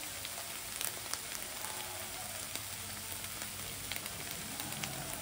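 Sliced onions frying in hot oil in a pan: a steady soft sizzle with scattered faint crackles.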